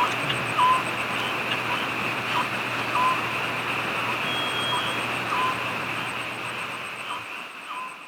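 Steady rain, with short chirping calls repeating about once a second over it. The sound fades out near the end.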